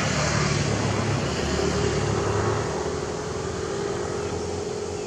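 Komatsu PC228 excavator's diesel engine running under working load as the arm and bucket move, with a steady whine joining about a second and a half in. The engine eases off in the second half.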